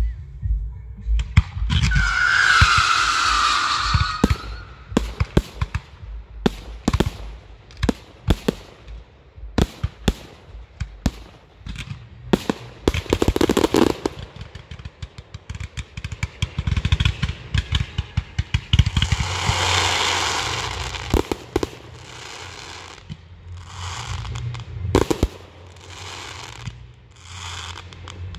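Fireworks display: many sharp bangs of bursting shells, with a longer stretch of hissing crackle about two seconds in and again around twenty seconds in, then a run of short evenly spaced bursts near the end.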